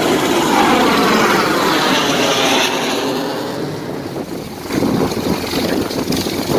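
A jet fighter passing overhead, its loud roar sweeping and shifting in pitch and then fading away over about four seconds. About three-quarters of the way through, an EC725 Caracal helicopter's turbines and turning rotor take over with a rapid, pulsing chop.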